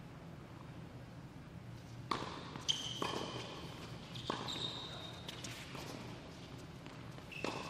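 Tennis point on an indoor hard court, starting about two seconds in: sharp racket strikes on the ball and ball bounces, several of them about a second apart, echoing in the hall. Between the hits come short high squeaks of sneakers on the court surface.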